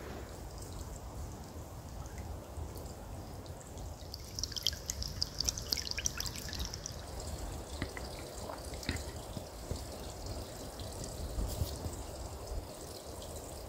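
Small woodland stream running over rocks, a steady trickling and splashing of water. A flurry of sharper drips and splashes comes about four to seven seconds in.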